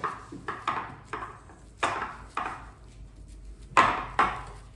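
Gloved hands patting and pressing raw ground-beef meatloaf mixture into a glass baking dish: a string of short, irregular slaps and knocks, the loudest about four seconds in.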